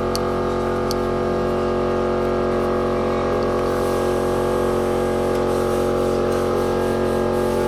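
A machine running steadily, holding a constant multi-toned hum, with a couple of light clicks about a second in.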